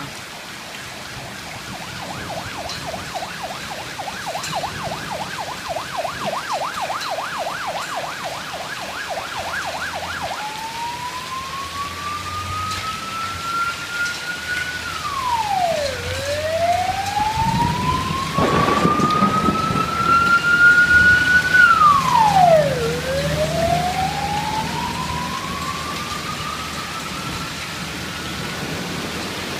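An emergency vehicle siren sounding through heavy rain: a fast yelp for about the first ten seconds, then a slow wail that rises and drops sharply, over and over. A rumble of thunder comes past the middle and is the loudest sound.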